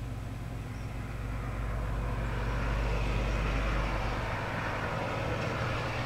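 A vehicle passing by, its noise swelling over a couple of seconds and then fading near the end, over a steady low hum.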